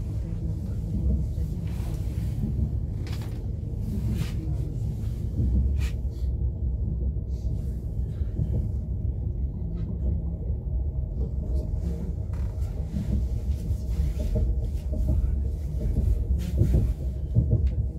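ES2G electric train running, heard from inside the passenger car as a steady low rumble, with a few brief clicks and knocks over it.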